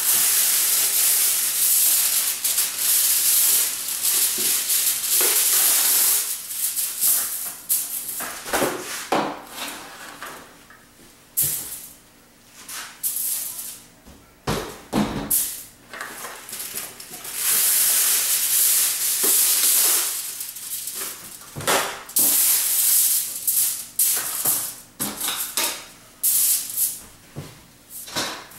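Aluminium foil being pulled off the roll, torn and crinkled as sheets are spread flat on a table, in long loud crackling stretches with short crinkles and light knocks of handling between.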